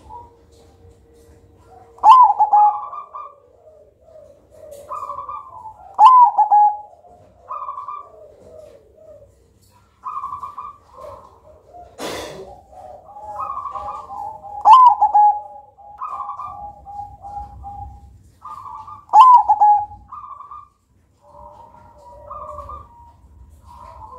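Zebra dove (perkutut) singing its cooing song in repeated phrases every few seconds: each phrase is a few short notes, then a loud falling coo with softer notes trailing after. A single sharp knock comes about halfway through.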